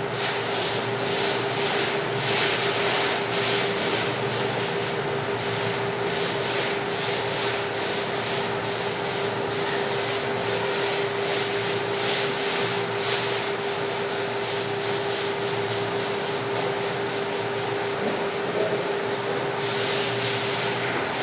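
Paint roller on an extension pole being rolled up and down a wall, a repeated wet rubbing swish at about two strokes a second. A steady hum runs underneath.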